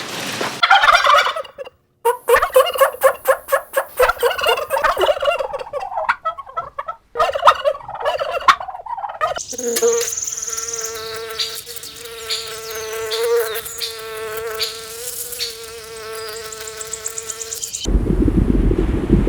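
Animal sounds cut one after another: a run of short, broken bird-like calls, then a steady buzz on one pitch lasting about eight seconds. Near the end it changes to a low, wind-like rumble.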